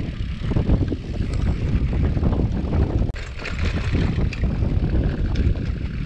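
Wind rumbling on the camera microphone of a gravel bike rolling along a rough, patched asphalt lane, with tyre noise and light rattles over the bumps. About three seconds in, a brighter crackling tyre noise joins in.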